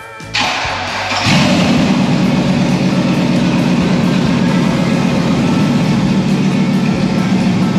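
Cab-over ramp truck's engine starting: a sudden rush of noise, then about a second in it catches and runs steadily with a strong low hum.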